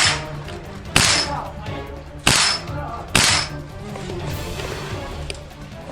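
WE SVD gas-blowback airsoft Dragunov firing four shots in a row, each a sharp metallic clack of the blowback action, about a second apart.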